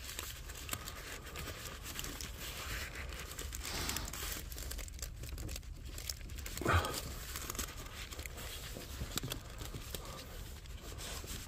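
Crinkling and rustling of pipe lagging being handled and fitted around caravan water pipes, with scattered small clicks and one louder moment about seven seconds in.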